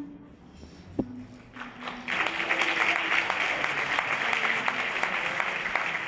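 Audience applauding: the clapping is thin for the first two seconds, with a single thump about a second in, then swells to full strength and stays there.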